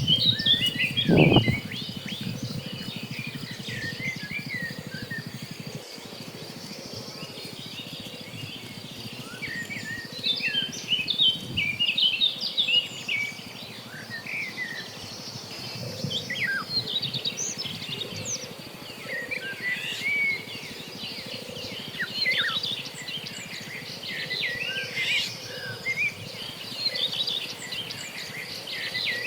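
Many small birds chirping and twittering throughout, over a steady high-pitched insect drone. A brief low sound stands out about a second in.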